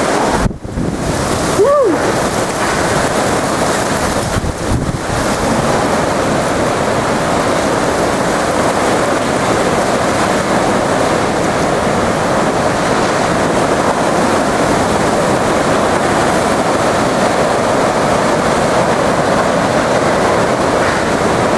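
Hurricane-force wind blowing steadily through trees and buffeting the microphone, with the howling of wind through high-voltage power lines mixed in. A short falling whine is heard about two seconds in.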